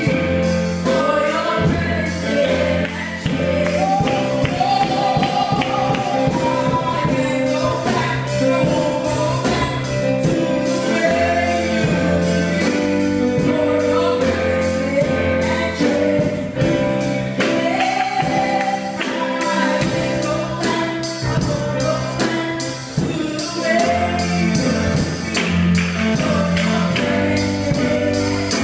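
Live gospel music: singers on microphones carry a sliding, held melody over steady bass notes and a band's drum and cymbal beat, amplified through the church's sound system.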